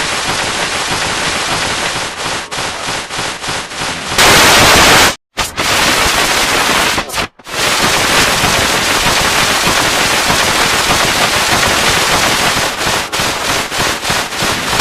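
Harsh, heavily distorted noise like loud static, with rapid stuttering cuts, a sudden jump louder about four seconds in, and two brief dead silences a second or two later.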